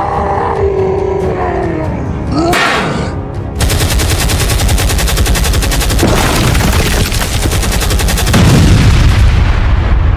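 Cartoon sound effects: a wavering, groan-like pitched cry and a whoosh, then rapid machine-gun fire for about four seconds. A heavy explosion boom follows near the end and is the loudest sound.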